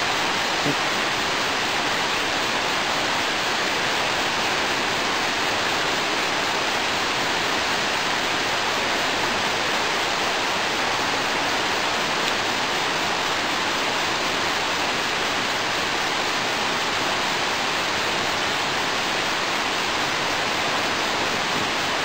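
Steady rushing of river water, an even unbroken hiss.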